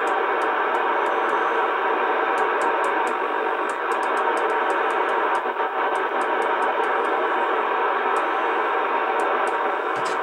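A York JCB863 FM CB radio's speaker giving a steady hiss of receiver noise while the channel selector is turned through the channels, with light, irregular clicks from the switch.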